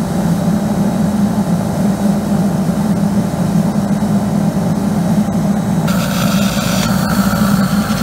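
Fuel-fired steam boiler running with a steady, loud drone. About six seconds in, a steady hiss joins as steam jets from the nozzle.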